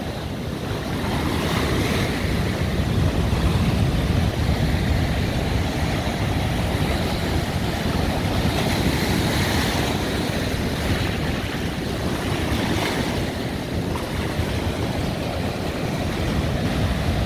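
Large ocean waves breaking over and around shore boulders: a steady, heavy wash of surf and foaming water that swells louder now and then.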